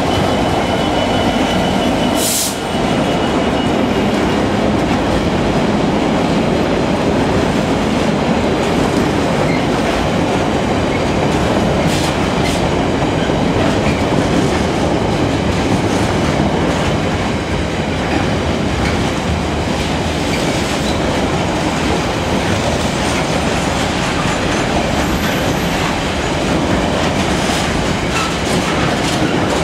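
A train running close by on the rails: a loud, steady rumble of wheels and running gear, with a few short sharp clicks.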